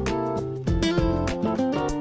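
Background music: rhythmic strummed acoustic guitar over a bass line.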